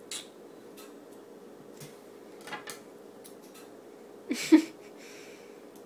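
Plastic packaging of iPhone accessories being handled and peeled: scattered small clicks and crinkles, one louder sharp clack about four and a half seconds in, and a short crinkling rustle just after.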